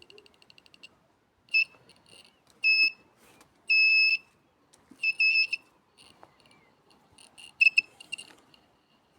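Electronic beeping from a long-range gold locator. A rapid train of high ticks stops about a second in, then single high beeps and longer tones follow at irregular gaps, with a cluster of quick beeps near the end.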